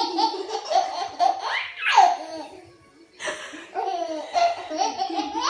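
Baby laughing in repeated bursts of high-pitched belly laughter, with a short pause about halfway through.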